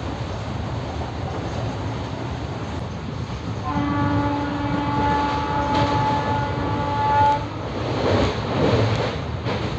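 Steady rumble of a moving passenger train, with a train horn sounding a multi-tone chord about four seconds in for roughly three and a half seconds. The noise swells louder twice near the end.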